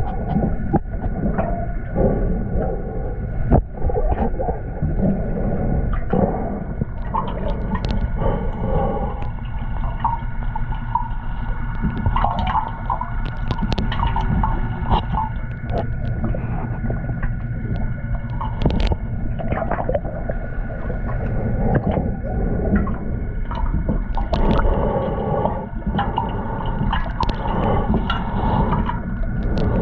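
Underwater sound picked up by a camera in its housing, from inside a shark cage: a muffled low rumble with bubbling and scattered clicks and knocks, over a steady whine of several tones.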